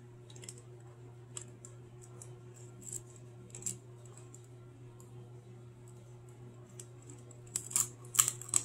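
Eggshell being cracked and picked apart by hand over a glass measuring cup: scattered small crackles and clicks, with a quick cluster of louder ones near the end, over a faint steady hum.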